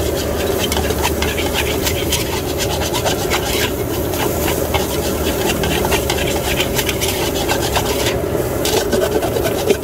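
Flat metal spatula scraping and scooping fried rice around a steel wok in quick, repeated rasping strokes, over a steady background roar.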